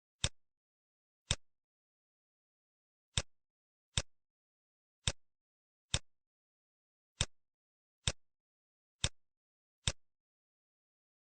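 Computer mouse clicking: about ten sharp single clicks at uneven intervals, roughly one a second, with dead silence between them.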